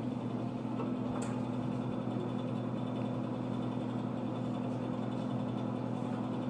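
A steady low hum, unchanging throughout, with a faint click about a second in.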